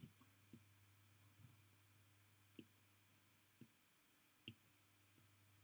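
About five faint, separate computer mouse clicks at irregular intervals, over near silence with a low steady hum.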